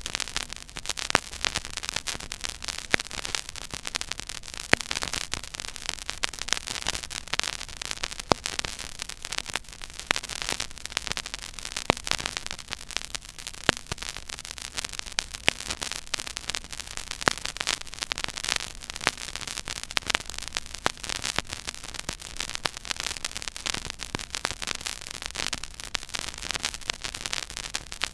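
Surface noise of a stylus tracking a silent groove on a 12-inch vinyl record: steady hiss with dense crackle and scattered louder pops, over a faint low rumble.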